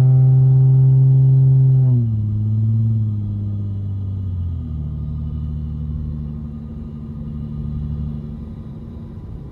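2009 Lexus IS250's 2.5-litre V6 with its resonator and mufflers deleted, droning loudly at a steady cruise, heard from inside the cabin. About two seconds in the throttle is lifted: the note drops in pitch and gets quieter, shifts again about four and a half seconds in, and eases off as the car coasts.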